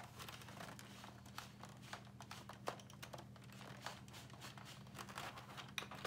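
Plastic housing of a Cherry G80-3494 keyboard creaking as it is twisted by hand: scattered small creaks and crackles that are not very loud. The creak shows the case flexing under the twist.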